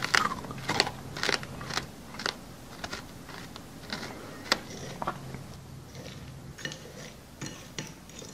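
Staged crunching eating sounds mixed with a metal spoon scraping and clicking against a ceramic plate through a wet grey paste. The crunches and clicks come irregularly, thickest and loudest in the first two seconds, with a single sharp one about four and a half seconds in.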